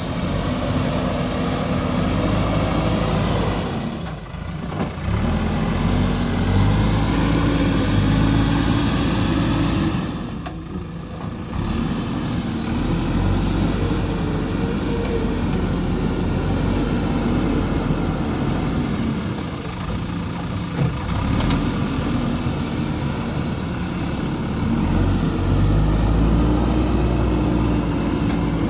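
JCB backhoe loader's diesel engine running under load as the machine works, its note rising and falling. It eases off briefly twice, about four and ten seconds in.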